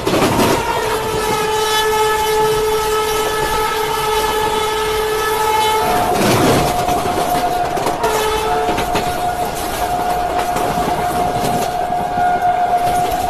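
Train horn sounding in long held blasts over the rumble and clatter of a moving train's wheels on the rails. About six seconds in the horn changes to a different pitch, with a short break near eight seconds.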